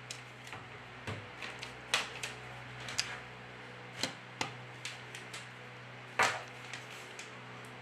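About a dozen small sharp clicks and taps at an irregular pace, the loudest about two, three and six seconds in. They come from parts of an Alcatel Idol 3 smartphone being pressed and snapped into place by fingers as the phone is put back together.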